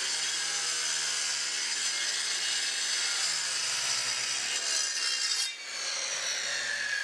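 Skil circular saw with a diamond turbo-rim blade cutting through a granite countertop slab with water: a steady, loud grinding whine of the blade in stone. About five and a half seconds in it dips briefly, then carries on with a slowly falling whine.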